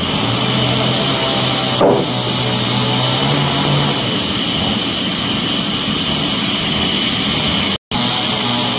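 Sawmill band saw and its motor running steadily: a constant mechanical hum with a hiss on top, a low steady tone for about the first four seconds, and one brief louder knock about two seconds in.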